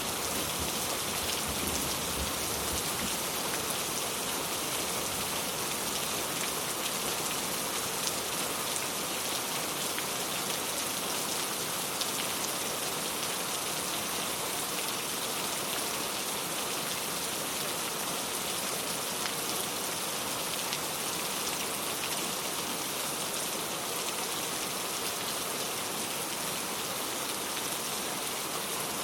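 Steady rain falling, an even hiss with scattered ticks of single drops. A low rumble of thunder dies away in the first couple of seconds.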